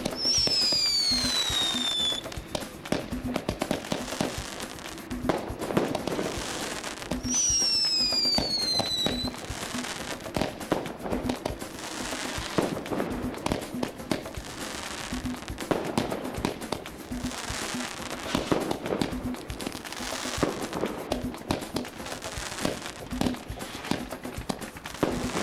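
Black Cat Thunder Dome firework firing: two whistles falling in pitch, one at the start and another about seven seconds in, then repeated launch thumps, bursting bangs and crackle. Background music with a steady beat plays underneath.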